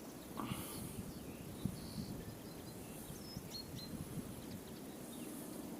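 Faint outdoor ambience of open downland, with a low wind rumble and a few short, high bird chirps around the middle.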